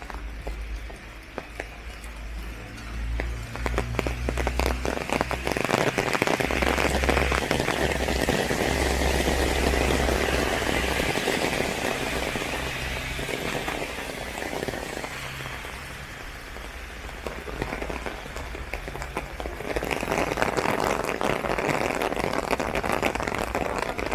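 Rain pattering densely on an umbrella, a steady hiss of many small drop hits. It gets heavier a few seconds in, eases off in the middle, and picks up again near the end.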